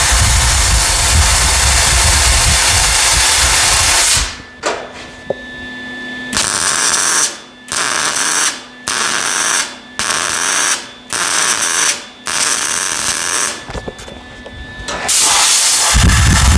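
Compressed-air blow gun blasting on the hot steel, then a MIG welder crackling in about six short stitch welds, each about a second long, tacking an exhaust pipe onto sheet steel. The air blast returns near the end, cooling and shrinking the fresh welds to keep the panel from warping.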